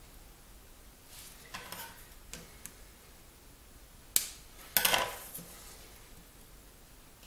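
Small hard clicks and taps of a little circuit board, wire and small tools being handled on a desk: a few soft ticks, then a single sharp click a little after four seconds and a quick cluster of sharper clicks about a second later.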